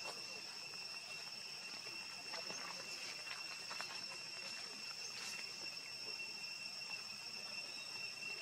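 Steady high-pitched insect chorus, a constant two-note drone. A few faint ticks and scuffs sound about two to five seconds in.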